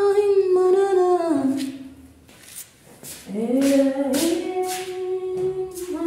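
Background song: a singing voice holding long notes that slide from one pitch to another, with short sharp hissing beats between them.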